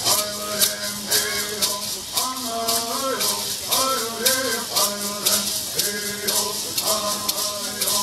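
Mohave bird song: voices singing a gliding melody over gourd rattles shaken in a steady beat.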